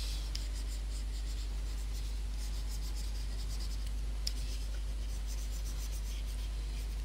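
Stylus scratching across a graphics tablet in quick, short strokes while shading, with one sharper tick about four seconds in. A steady low hum runs underneath.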